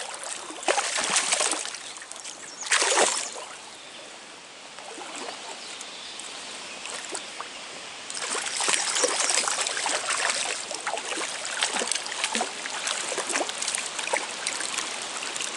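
Stream water running, with splashing at about one and three seconds in and a longer, busier stretch of splashing from about eight seconds on: a hooked brown trout thrashing at the surface as it is played in.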